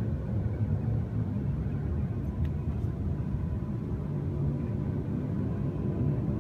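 A low, steady rumbling drone with a faint steady tone above it: the unexplained 'ship' sound heard in the sky, likened to a ship.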